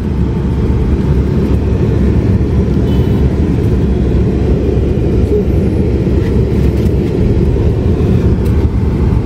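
Steady low rumble of road vehicle noise, like a car's road and engine noise, with no clear events standing out.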